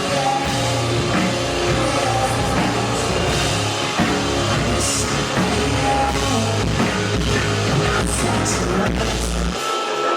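Rock band playing live, with drum kit, guitar and bass. The heavy low end cuts out about nine and a half seconds in.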